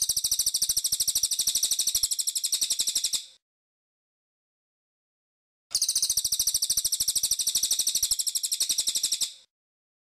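Cililin bird singing: two long, high-pitched rapid trills of about three and a half seconds each, separated by a pause of about two seconds.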